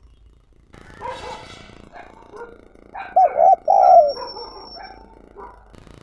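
Spotted dove cooing: a short run of loud, deep coo notes about three to four seconds in, among scattered fainter noises.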